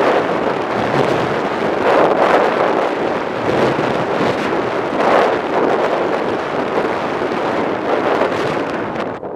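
Wind buffeting the microphone of a skier racing a giant slalom course, with the hiss of skis carving packed snow swelling on each turn, about every second and a half. It eases off near the end as the run reaches the finish.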